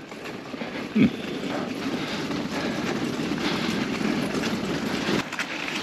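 Steady rushing rumble of a passing vehicle, which drops away near the end.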